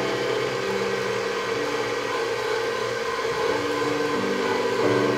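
KitchenAid Professional HD stand mixer running steadily at low speed, its dough hook kneading steamed glutinous rice into mochi.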